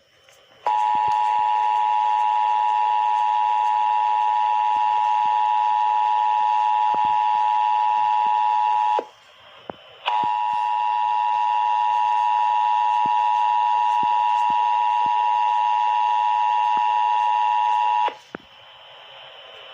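Emergency Alert System attention signal, the steady two-tone 853 and 960 Hz alarm, sounding twice for about eight seconds each with a short break about nine seconds in.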